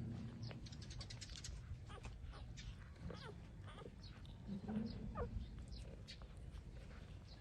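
Three-week-old puppies squeaking and whimpering while nursing: short, high, gliding squeaks scattered throughout, with soft clicks mixed in.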